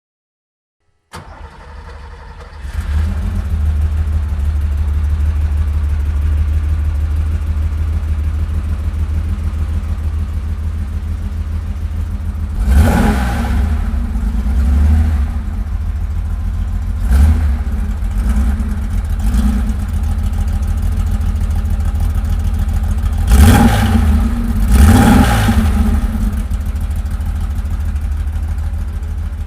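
A 1972 Porsche 911 2.4's air-cooled flat-six being started: a brief crank, then it catches and settles into a steady idle. From about halfway on it is blipped on the throttle several times, each a short rise and fall in revs, the two biggest near the end.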